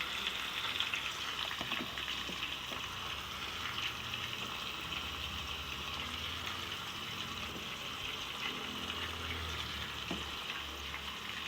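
Squash sautéing in hot oil in a pan: a steady sizzling, crackling hiss with occasional light clicks.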